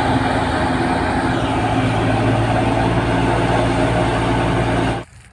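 Tractor-driven wheat thresher running at full speed, with the Fiat 640 tractor's engine under it, as wheat straw is fed in and chaff is blown out. The steady loud machine noise cuts off abruptly about five seconds in.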